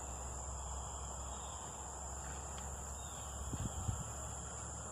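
Crickets trilling in a steady high-pitched drone, over a low hum, with a few faint low knocks about three and a half seconds in.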